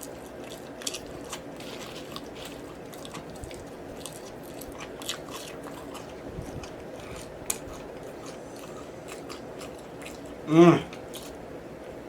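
Close-miked chewing of a BBQ rib sandwich, with many small wet mouth clicks and smacks. About ten seconds in there is one short, louder hum.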